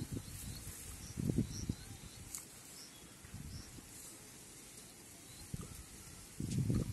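Outdoor ambience with faint high bird chirps, broken by a few short low rumbling bursts, one about a second in and a louder one near the end.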